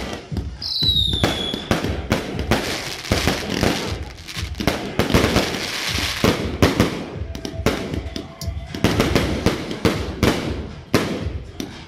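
Aerial fireworks going off in a rapid, irregular barrage of bangs and crackling as shells burst overhead. There is a short falling whistle about a second in.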